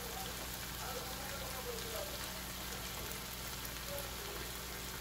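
Lamb tibs with onion and tomato frying in a pan: a steady sizzle.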